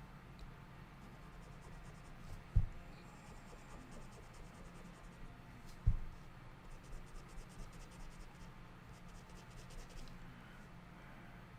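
Faint scratching of a drawing pen moving over the drawing surface in quick strokes, in two runs. Two dull thumps come about a third and halfway through, over a steady low hum.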